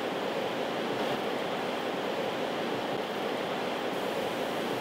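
Creek water rushing steadily, an even hiss with no distinct splashes or knocks.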